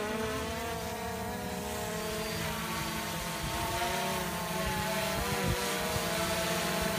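DJI Phantom 2 quadcopter in flight, its motors and propellers running with a steady whine made of several pitches that waver as the motors adjust. It grows a little louder in the second half as the drone comes lower and nearer.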